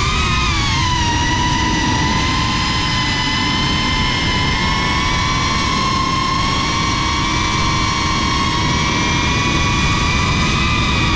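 FPV quadcopter's electric motors and propellers whining at a nearly steady pitch, heard from the onboard camera, with a low rushing noise underneath.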